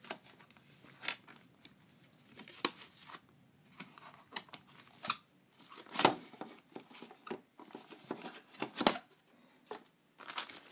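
Cardboard packaging rustling and scraping as a wooden presentation box is slid out of its cardboard sleeve, with scattered sharp clicks and knocks as the box is handled.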